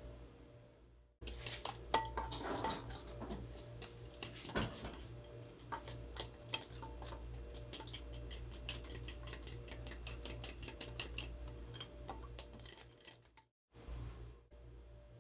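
Spoon stirring a yogurt dressing in a glass bowl, clinking quickly and unevenly against the glass, over a steady low hum. The clinking stops suddenly near the end.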